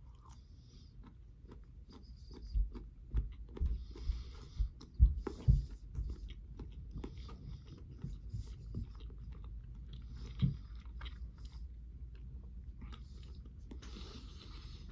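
A person biting and chewing a smoked turkey meat snack stick close to the microphone: irregular soft clicks and smacks of the mouth, loudest between about two and six seconds in, then quieter chewing.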